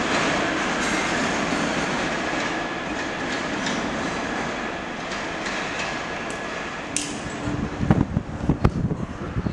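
A train running past on the rails, its rushing noise slowly fading, with a faint steady high squeal early on. Wind buffets the microphone in the last two seconds.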